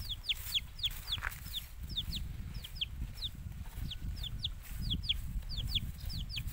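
Chicks peeping: short falling peeps, often in pairs, about three a second, over a low rumble.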